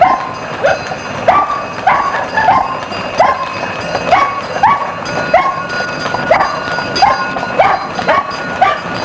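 A dog barking over and over, about one and a half short rising barks a second.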